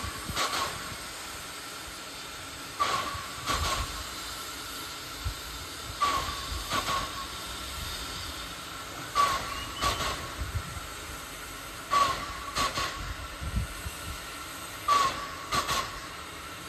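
Small steam tank locomotive standing with steam hissing steadily, broken by a regular pair of sharp puffs about every three seconds.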